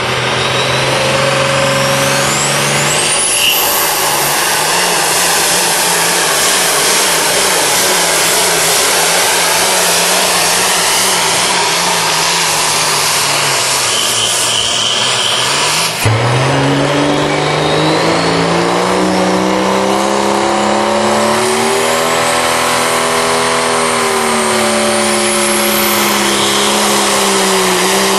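Diesel pickup trucks pulling a weighted sled at full throttle, loud and steady, with a high whistle that climbs in pitch early on. About halfway through, the sound breaks off abruptly and another diesel pickup's engine rises in pitch and holds high under load, again with a rising high whistle.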